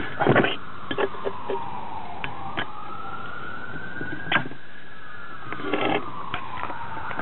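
A siren wailing, its pitch slowly rising and falling over several seconds, with scattered sharp knocks and clatters of the camera being handled and set down on a tiled table.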